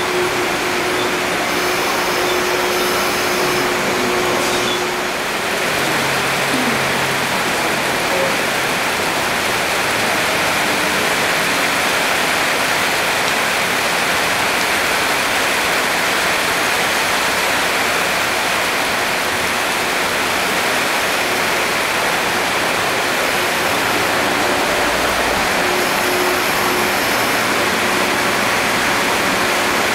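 Heavy rain pouring steadily, an even, unbroken hiss, with a faint hum from an electric multiple-unit train moving through the station.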